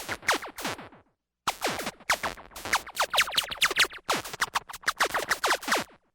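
Synthesized digital sound effect: rapid strings of short electronic chirps, each gliding quickly down in pitch, like stuttering laser zaps. One run stops about a second in, a second runs from about one and a half seconds to four, and a third follows right after.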